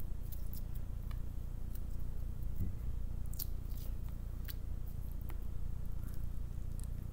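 Clear slime squeezed and worked between the fingers, giving scattered small sticky clicks and pops, over a steady low hum.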